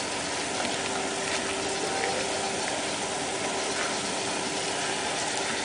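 Steady background noise: an even hiss and rumble with a faint steady low hum, engine-like, with no distinct events.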